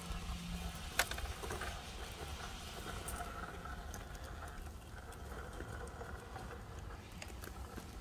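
Axial SCX10 III RC rock crawler crawling slowly over rocks: a faint, steady whirr of its electric motor and gearbox, with a few sharp clicks and knocks, the sharpest about a second in.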